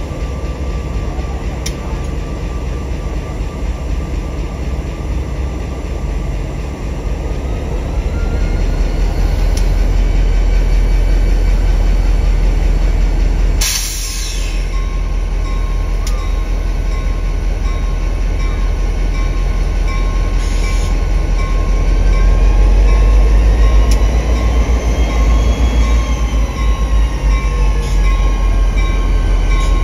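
NJ Transit F40PH-2CAT diesel locomotive running as it creeps up to a passenger car to couple, a loud steady low rumble. A brief loud hiss comes about 14 seconds in. In the second half the rumble swells, with a whine that rises and then falls.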